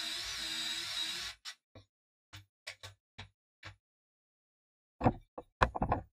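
Cordless drill running steadily with a slightly wavering whine as it bores a pocket hole into a board held in a pocket-hole jig, stopping about a second and a half in. Then scattered light clicks and knocks as the board and clamps are handled, and a quick run of louder wooden knocks near the end as boards are set down on the bench.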